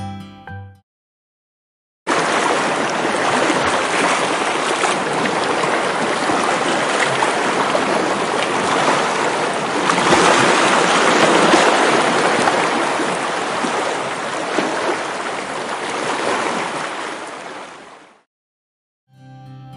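Steady rushing of surf breaking on a sandy beach, swelling slightly midway. It cuts in abruptly about two seconds in and is cut off abruptly near the end.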